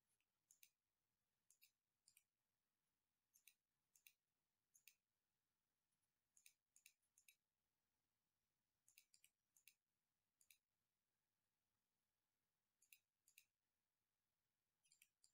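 Faint, irregular computer mouse clicks over near silence, some single and some in quick runs of two to four.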